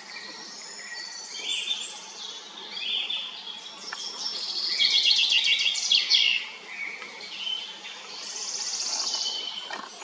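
Several songbirds singing and calling at once, with overlapping high chirps and rapid trills that peak in a loud burst of song about halfway through.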